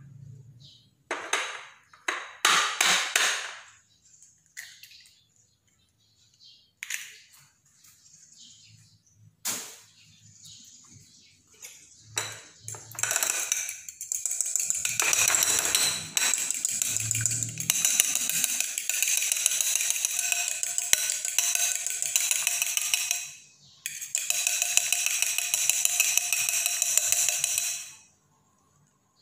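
Metal fork beating eggs in a small bowl: a fast, steady clatter of the fork striking the bowl's sides, with a brief stop about three quarters through and ending near the end. Before it, a few short knocks and cracks as an egg is cracked into the bowl.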